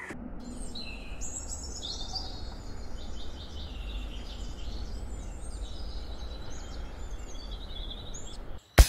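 Birds chirping and singing in many short, gliding calls over a steady low background rumble, cut off near the end by a single sharp crack.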